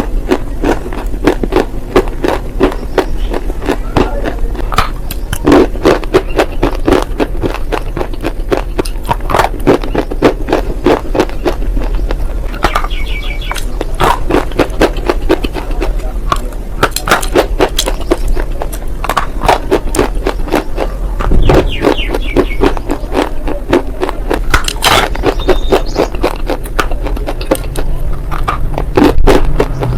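Close-miked chewing of unroasted nakumat, an edible clay, with crisp crunches several times a second and a few louder bites.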